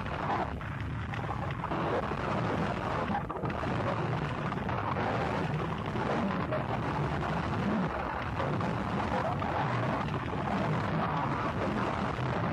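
Gorenoise recording: an unbroken wall of harsh, distorted noise, heaviest in the low and middle range, holding a steady level with no clear notes or beat.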